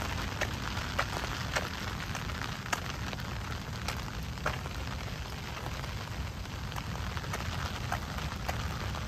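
Rain falling steadily, with scattered sharp taps of individual drops close by, over a low rumble.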